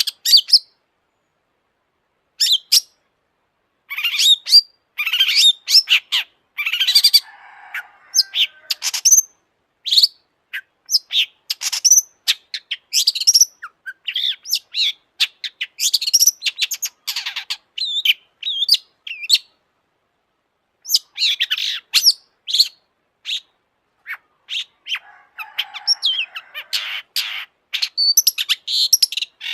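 Long-tailed shrike in full, energetic song: fast chattering bursts of varied high notes, with harsh rasping passages about seven seconds in and again near the end. Short pauses about one second in and around twenty seconds.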